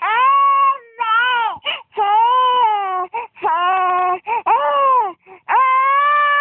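A young child crying hard: a run of loud wailing cries, each lasting about half a second to a second, with short breaks between them.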